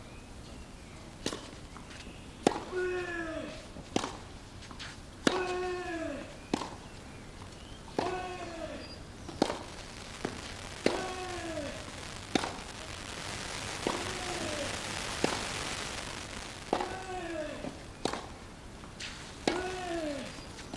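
Tennis ball struck back and forth in a long baseline rally on clay, about one shot every one and a half seconds. Many strokes are followed by a loud grunt from a player that falls in pitch.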